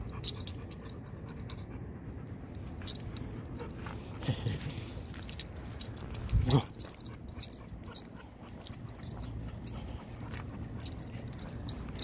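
Metal chain leash and collar hardware jingling in irregular clinks as the pit bull walks on the leash, over a steady low rumble. A short, louder thump comes about six and a half seconds in.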